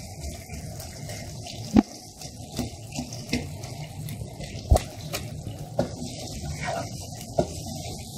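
Beef stew simmering in a pot with a steady bubbling, while a plastic spoon stirs and presses the meat to test whether it has gone tender. The spoon knocks against the pot about seven times, loudest about two and five seconds in.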